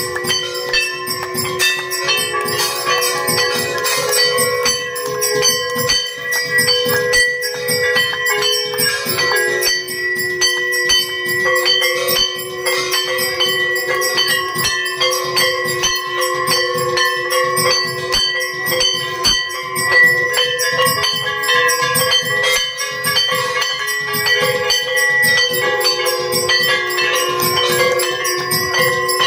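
Puja hand bell rung rapidly and without pause, the strokes running together into a continuous ringing.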